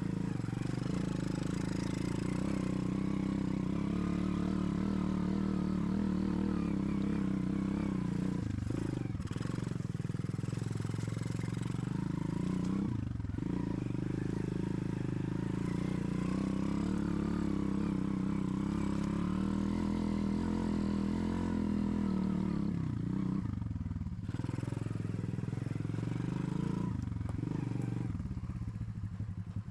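Motorcycle engine running steadily under way, its note dipping briefly four times, then dropping to a slow, low idle near the end.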